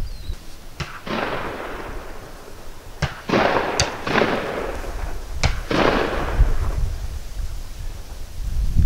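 Four shotgun shots spread over about five seconds, each a sharp crack followed by about a second of rolling echo.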